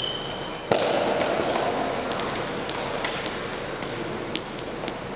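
Two diabolos worked on a single string between hand sticks: a rush of string-and-spool noise about half a second in, brief high squeaks near the start, then scattered light clicks and taps of the diabolos on the string and sticks, echoing in a gym.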